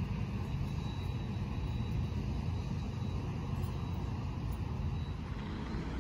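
An engine running steadily, a low rumble.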